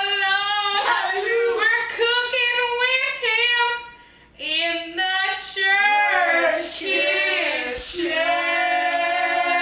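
A high-pitched voice singing a melody unaccompanied, breaking off briefly about four seconds in and ending on a long held note.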